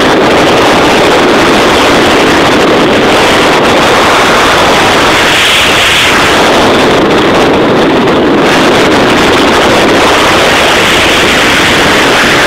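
Loud, steady wind roar on the microphone together with the running noise of a vehicle driven fast on a dirt trail.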